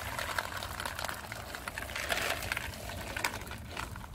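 Dry cat kibble being poured into a plastic feeding tray: a rapid run of small pattering clicks as the pellets land and pile up.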